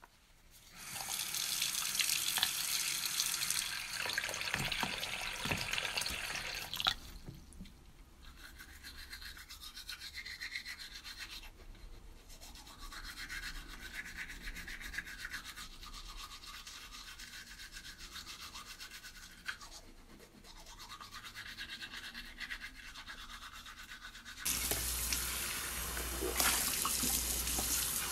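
A loud hiss for the first several seconds, then the quieter scratchy scrubbing of a toothbrush on teeth, then, from near the end, a tap running water into a sink full of dishes.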